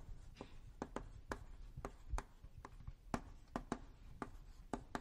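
Writing on a lecture board while drawing a diagram: about a dozen sharp, irregular taps and short strokes.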